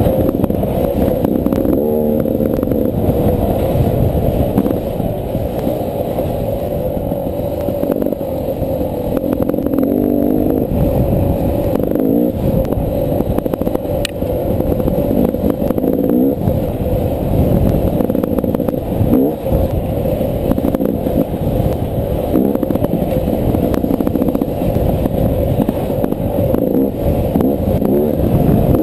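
Beta 300 RR two-stroke dirt bike engine running hard on a trail ride, its pitch rising and falling again and again as the throttle opens and closes.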